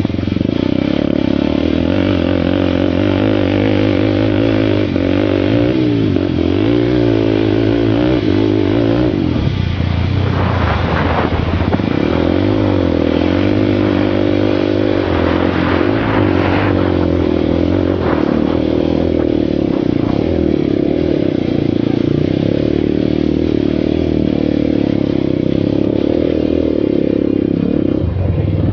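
Sport quad's single-cylinder four-stroke engine running hard under throttle as it is ridden, its note wavering up and down with the throttle. The steady engine note breaks up briefly about ten seconds in.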